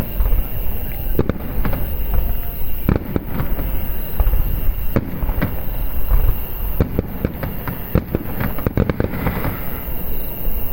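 Aerial fireworks shells bursting one after another: a steady run of sharp booms over a continuous low rumble, with a burst of crackling near the end.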